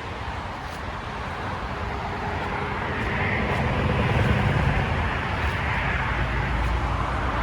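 Steady highway traffic passing below, with one vehicle swelling louder about four seconds in.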